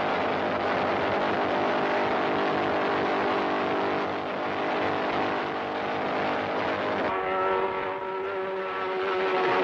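Racing motorcycle engine running flat out at high revs, its pitch held steady, with an abrupt change in tone about seven seconds in.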